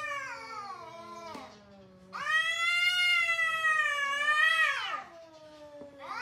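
Two cats yowling at each other in a territorial standoff, the long, wavering caterwauls that come before a cat fight. A call falls away in the first second and a lower voice moans under it; about two seconds in, one long loud yowl runs for nearly three seconds and bends at its end, then quieter calls follow, with another loud yowl starting at the very end.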